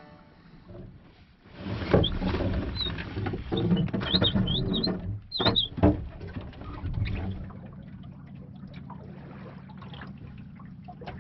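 Water lapping against the hull of a small wooden sailboat. From about two to seven seconds in, a sail is hoisted: rope running and canvas rustling, with several short high squeaks.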